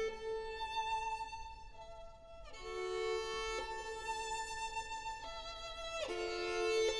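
Violin playing slow, held notes, often two pitches sounding together, with a brief hush about two seconds in before new notes come in.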